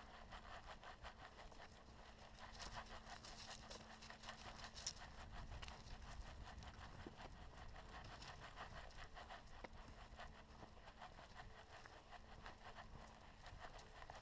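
Faint footsteps scuffing and crunching along a dirt forest trail, irregular and quiet, over a faint steady hum.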